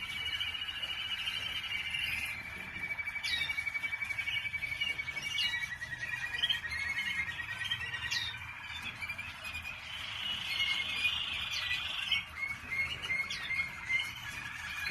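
Waterslager canary singing: a run of rapid trilled rolls that shifts to a new roll every few seconds, with short sharp chirps over them.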